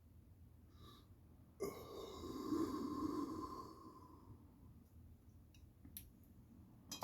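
A person's long, audible exhale or sigh, lasting about two and a half seconds and starting between one and two seconds in. A few faint clicks follow near the end.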